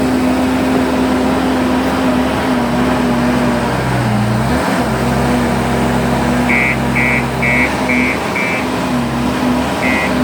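JCB 155 skid steer loader's diesel engine running under working load, its pitch dipping and wavering about four seconds in. In the second half its reverse alarm beeps about twice a second, five times, and starts again near the end.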